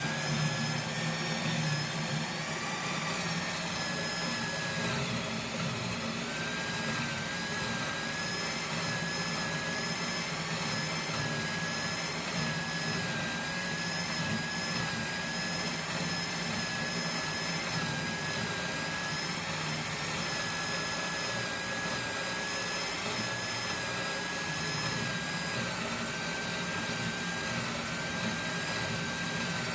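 Power cutting tool running steadily as it cuts lengthwise into a bar of steel square stock: a continuous whine with a high, slightly wavering tone over a low motor hum.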